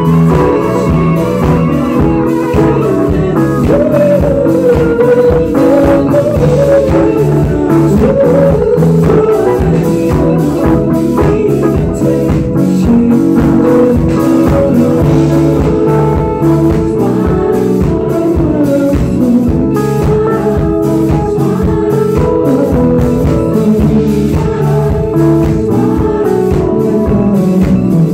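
Live band playing an R&B song with a singer's voice over guitar and a steady drum beat.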